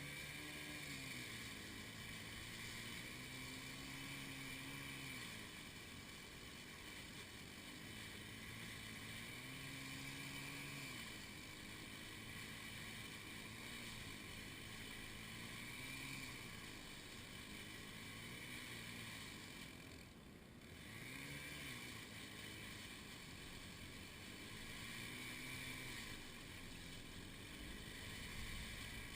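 An engine running, its speed rising and falling every few seconds, with a brief drop about two-thirds of the way through.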